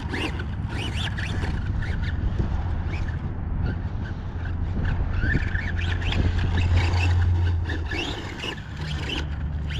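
Tamiya Blitzer Beetle RC car's brushed electric motor whining in short throttle bursts, rising and falling in pitch, over a steady low hum.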